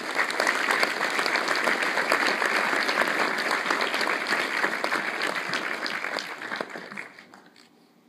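Large audience applauding, a dense steady clatter of clapping that dies away about seven seconds in.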